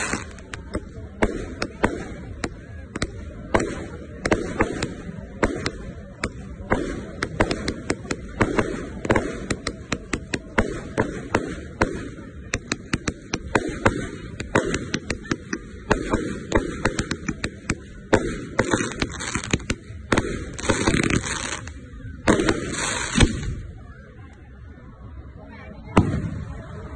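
A 100-shot fireworks cake firing in rapid succession, a quick string of launch thumps and shell bursts several a second with some louder bangs among them. Near the end the firing thins out, then one loud bang about a second before the end.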